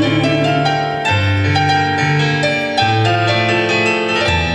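Piano playing an instrumental interlude between sung verses, a melody over bass notes that change about every second or so.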